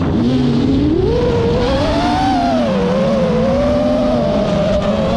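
FPV quadcopter's brushless motors whining, the pitch rising about a second in and then wavering up and down with the throttle.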